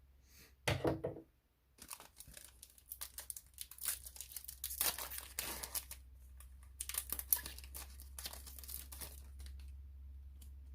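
Plastic trading-card packaging being torn open and crinkled by hand, in irregular stretches of tearing and rustling.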